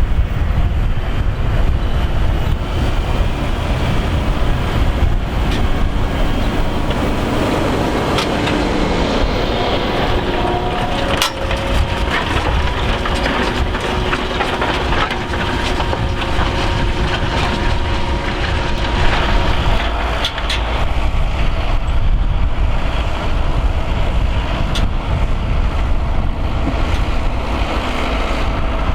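Fendt 724 tractor's engine working steadily under load while pulling a five-furrow plough up a steep bank, with a heavy low rumble and a faint steady whine. A few sharp clicks come through, the clearest about eleven seconds in.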